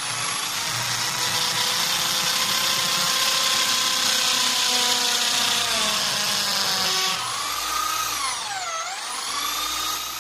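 Electric drill running at speed as it bores into a roll of PVC printer ribbon, a steady high motor whine. About seven seconds in the pitch dips sharply, then climbs back up to full speed.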